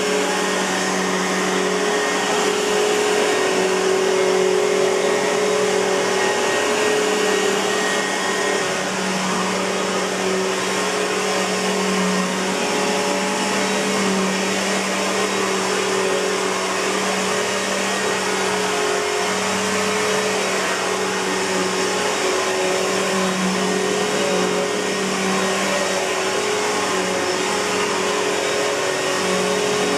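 2007 Simplicity Symmetry upright vacuum cleaner running steadily: an even motor-and-airflow rush with a steady low hum.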